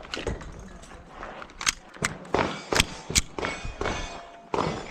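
Sharp metallic clicks and clanks from a pistol being loaded and readied: a magazine seated and the slide worked, with a few separate knocks, the loudest around the middle.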